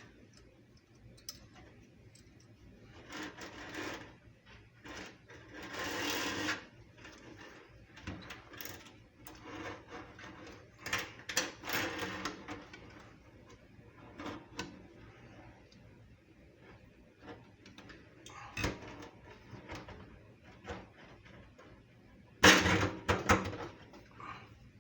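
Hands handling faucet parts while fitting a kitchen sink faucet: intermittent scraping, rustling and sharp clicks of metal and plastic pieces, with the loudest clatter of rattling knocks near the end.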